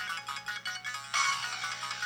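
Polyphonic ringtone from a Samsung Anycall SPH-W2500 mobile phone: a quick synthesized melody of bright, high notes.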